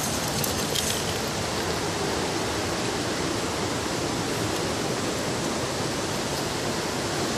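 Steady, even rushing noise like running water, with a few faint clicks in the first second.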